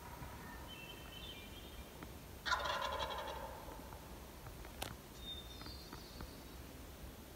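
A wild turkey gobbler gobbles once from the roost, about two and a half seconds in: a rattling call lasting about a second.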